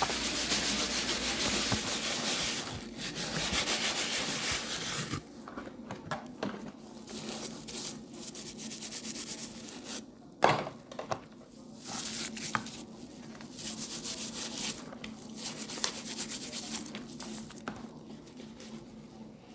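Repeated rubbing or scrubbing strokes: a rapid continuous scrubbing for about five seconds, then separate bursts of a second or two with short pauses between them. A single sharp knock about ten seconds in.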